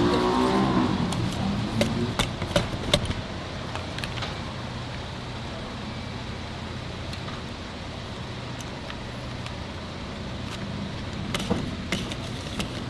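Wire whisk clicking against a steel bowl as thick frying batter is beaten, in quick sharp clicks during the first few seconds and again near the end. A steady hum of street traffic runs underneath.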